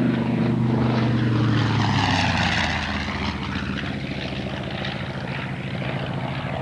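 Radial-engined propeller warbird making a low, fast pass. The engine drone drops in pitch as the plane goes by, about one to two seconds in, then carries on a little quieter as it flies off.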